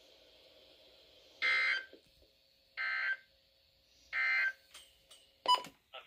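Midland NOAA weather radio playing the three short, buzzy digital data bursts of the SAME end-of-message code, spaced a little over a second apart, which mark the end of the severe thunderstorm warning broadcast. A sharp knock follows near the end.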